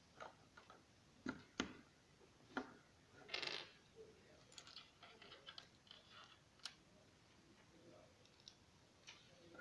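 Small plastic Lego pieces being handled and pressed together: scattered faint clicks and taps, with a brief rustle of parts about three and a half seconds in.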